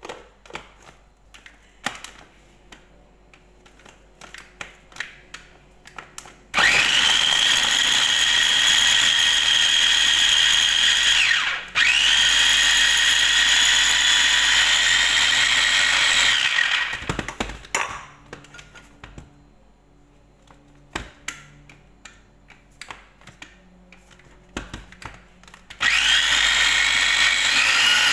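Electric mini food chopper running in three bursts, the first two split by a brief pause and the last near the end. At each start its motor whine rises, then holds steady as the blades grind chopped onion into a paste. Light clicks and knocks of the lid and bowl come in between.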